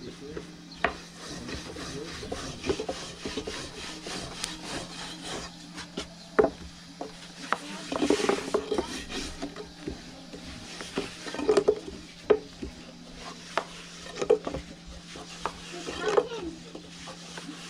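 A long, thin wooden rolling pin rolling and rubbing over flatbread dough on a floured wooden board, with irregular sharp knocks as the pin strikes the board. A steady low hum runs underneath.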